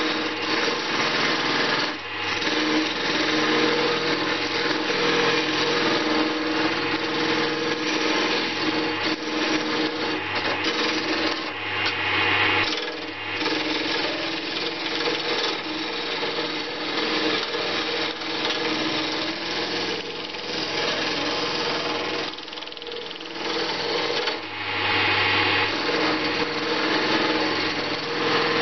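Small wood lathe running steadily while a hand-held turning tool cuts deeper into a spinning banksia seed pod, a continuous rough scraping over the motor's hum. The scraping eases off briefly a few times.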